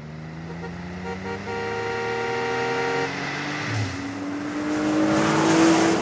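Cars speeding along a road, the engine note rising steadily as they accelerate. A car horn sounds for about a second and a half in the middle, and near the end a car rushes close past with a swelling whoosh.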